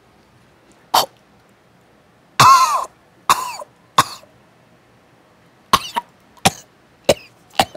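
A man coughing and gagging in a string of about eight harsh fits, one of them a longer, strained retch about two and a half seconds in. He is reacting to the vile smell of the laptop he has just opened.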